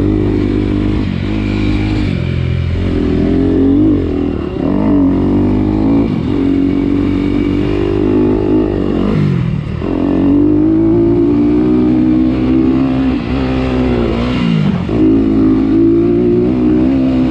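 Off-road vehicle engine running under throttle, heard on board. Its pitch falls sharply and climbs again about halfway through and again about three quarters of the way through as the rider slows and picks back up.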